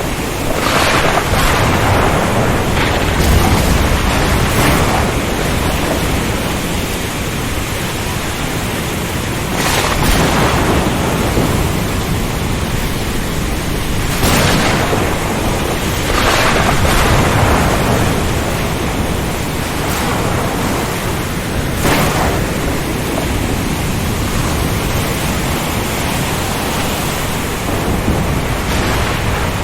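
Storm at sea: steady rain and strong wind over heavy surf, with a deep low rumble of thunder. Louder surges of wind and breaking waves come every few seconds.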